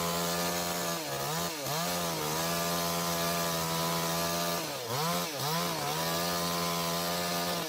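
Gas chainsaw running near full throttle while cutting, its pitch dipping sharply and recovering a few times around one and five seconds in as the chain bogs under load in the wood.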